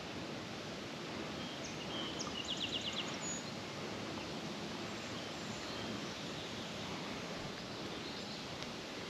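Steady outdoor background rush with a short bird call about two to three seconds in: a quick run of five or six high notes.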